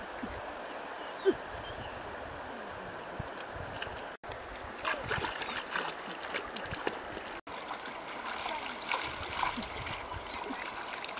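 River water flowing over stones, with a single short thump about a second in. In the second half, splashing as a plucked chicken is swished and rinsed in the shallow water.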